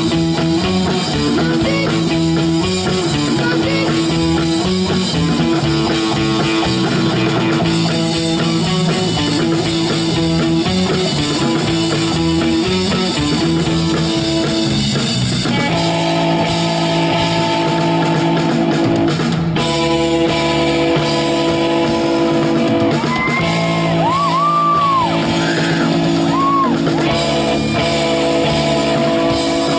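Live rock band playing on electric bass, electric guitar and drum kit, with a repeating riff; the part changes about halfway through.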